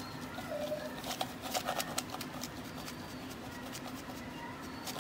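Salt pouring from a salt canister onto a wooden spatula, a quick run of fine pattering ticks about one to two seconds in, over a low steady hum.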